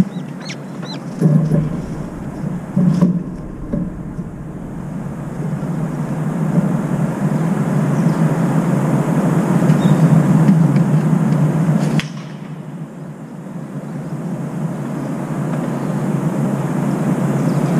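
Steady low outdoor rumble of urban background noise that swells toward the middle, drops off abruptly about twelve seconds in, then builds again. A few faint high chirps come near the start.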